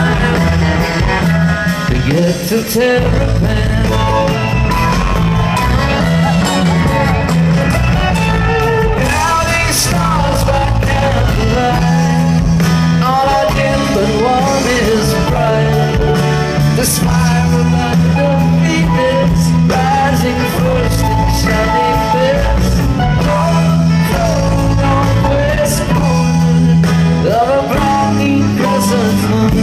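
Live band music with sung lead vocals, played by a string band of fiddle, mandolin, guitars and upright bass with drums and keyboard. The band is amplified through a concert sound system and heard from the audience.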